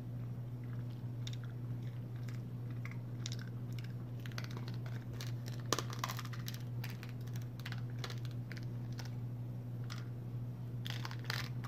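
Eating a chocolate caramel square: scattered small clicks, crinkles and chewing sounds, with one sharper click about six seconds in. A steady low hum runs underneath.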